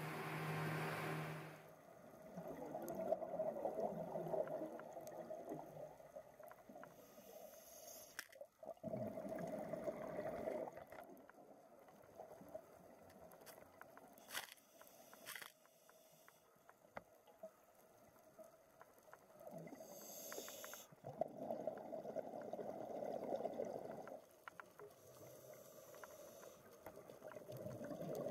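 Briefly an outboard-powered boat running at speed with wind noise, then underwater scuba breathing: bubbly gurgling exhalations through a regulator in bursts of a few seconds, several seconds apart, with short hisses of inhaled air between.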